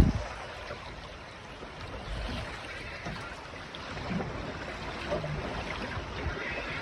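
Small waves lapping against the hull of a small fishing boat, over a steady low rush of wind.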